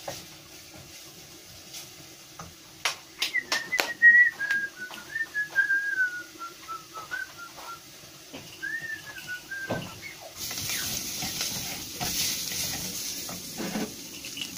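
Metal pots knocking on a gas cooker, with a high wavering whistle that slowly falls in pitch over several seconds. About ten seconds in, meat starts sizzling in the hot pot.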